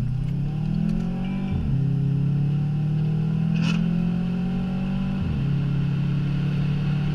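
Subaru Impreza WRX STI's turbocharged flat-four heard from inside the cabin under hard acceleration: the revs climb, fall sharply at an upshift about a second and a half in, then hold nearly steady with a brief lift off the throttle about five seconds in.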